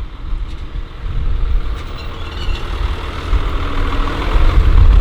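Heavy diesel farm vehicle engine running, its sound getting louder toward the end.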